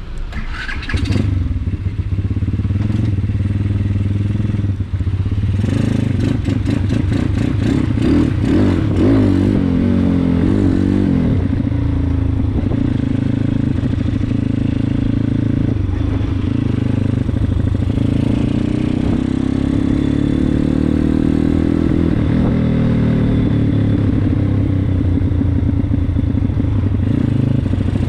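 Yamasaki 140 YX pit bike's single-cylinder four-stroke engine running under way, its pitch rising and falling with the throttle. There is some rattling clatter about a second in and again around six to nine seconds in.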